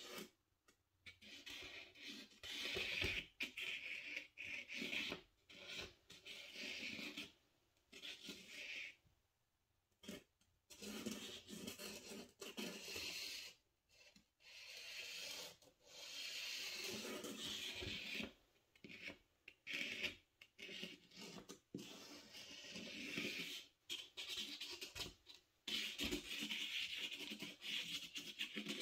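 Posca paint-pen tip scratching over paint-layered watercolor paper in short squiggly strokes. The strokes start and stop every second or two.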